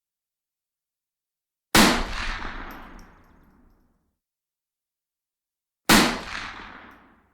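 Two rifle shots about four seconds apart. Each is a sharp crack followed by a rolling echo that dies away over about two seconds.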